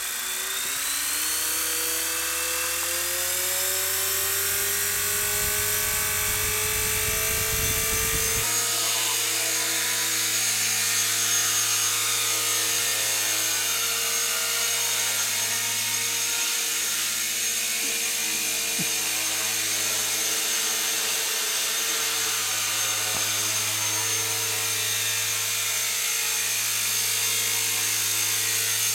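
Align T-Rex 250 micro electric RC helicopter's motor and rotor spooling up, the whine rising in pitch over the first eight seconds or so. It then runs at a steady pitch in flight.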